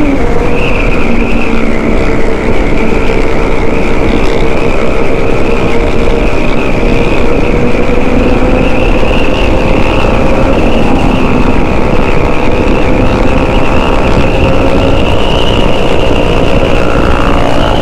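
Big motorcycle's engine running at a steady highway cruise, its pitch creeping slowly up through the middle, under a loud, constant rush of wind noise.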